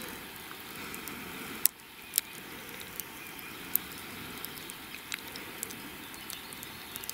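Quiet outdoor background hiss with a few scattered sharp clicks and pops.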